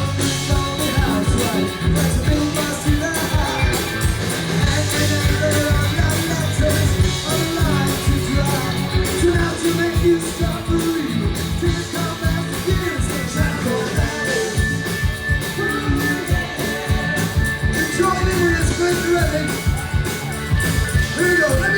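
Rock song with a singing voice over guitar and a steady drum beat.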